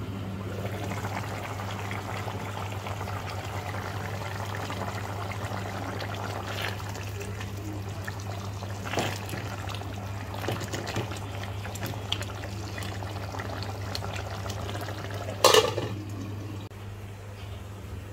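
Water running steadily over a constant low hum, with a few light knocks and one sharp, loud clatter about three-quarters of the way through. Soon after the clatter the water sound drops away.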